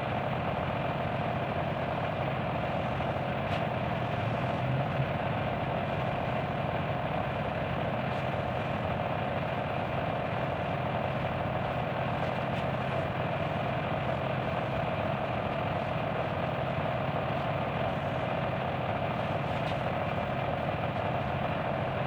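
Steady mechanical hum of a motor running at constant speed, with a few faint clicks.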